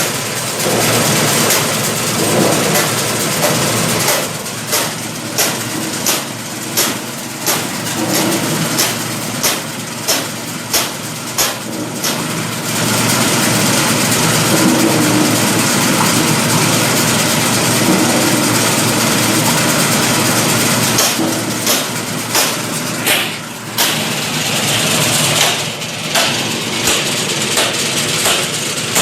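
Kolang-kaling (sugar palm fruit) peeling machine running with a steady motor noise, with runs of sharp knocks about one and a half a second as the fruit is worked inside it.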